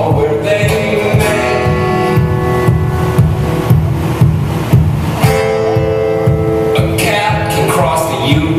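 Acoustic guitar music: steady strumming, with long held notes laid over it twice.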